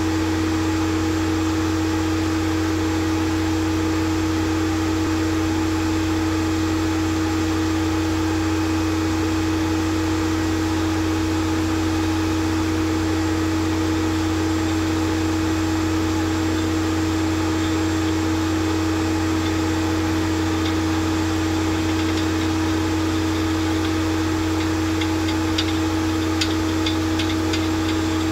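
RAID drill rig running steadily as its auger turns down into the snow, a constant mechanical hum. From about twenty seconds in, light irregular ticks come through over the hum.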